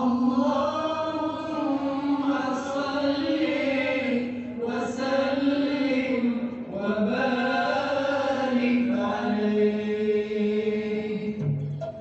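A single voice chanting a slow devotional song, holding long notes that waver and bend, in phrases a few seconds long. It drops away just before the end.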